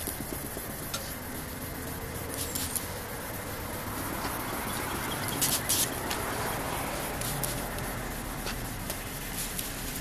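Sandpaper rubbed back and forth by hand over a wet plastic headlight lens, a steady wet rasp as the oxidised surface is wet-sanded. A trigger spray bottle squirts water onto the lens a few times in short hisses.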